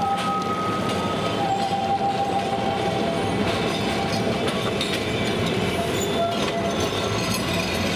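Old Calcutta electric tramcars running through a busy road junction amid city traffic: a steady rumble and clatter of wheels on rails. A few long high tones sound over it, each held for a second or so.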